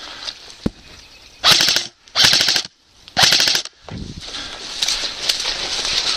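Airsoft rifle firing three short full-auto bursts of about half a second each, the rapid shots close and loud. Footsteps and rustling through tall grass follow.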